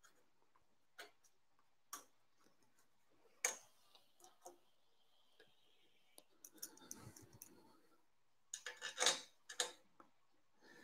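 Scattered light clicks and taps of small metal bolts and parts being handled and started by hand into the printer's aluminium frame. There is a short rustle about seven seconds in and a quick run of louder clicks near the end.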